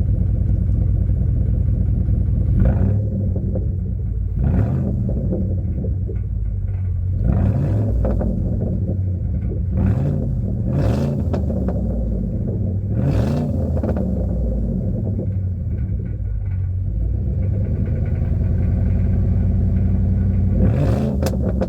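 Ford F-150 V8 exhaust, likely through an aftermarket system, rumbling at idle and revved about seven times. Each rev rises and falls and carries a sharp burst of crackles and pops.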